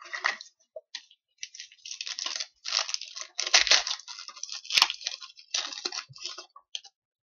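Trading cards and their pack being handled: irregular bursts of rustling and sliding, with a sharp click about five seconds in.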